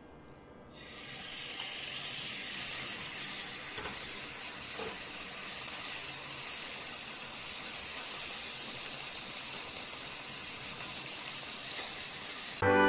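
Pork belly slices coated in a salt rub marinade sizzling in sesame oil in a hot frying pan. The sizzle starts about a second in as the meat goes into the pan and then runs steadily. Loud brass music cuts in just before the end.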